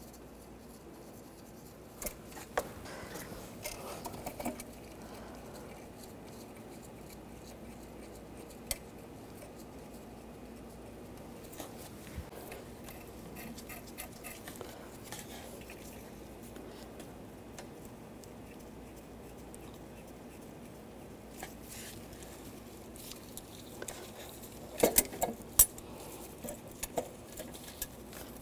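Light metallic clicks and taps of exhaust manifold nuts being threaded onto their studs by hand, with a quick cluster of louder clicks near the end.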